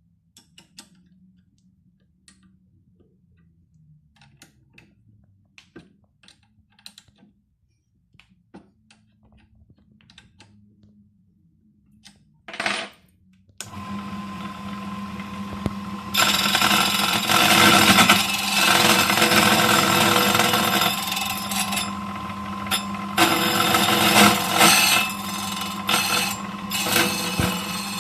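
Key-cutting machine cutting a flat lever-lock key. First there are light scattered clicks, then the motor starts about halfway through and runs with a steady hum. Loud grinding follows as the cutter mills the cuts into the blank, easing off briefly a few times.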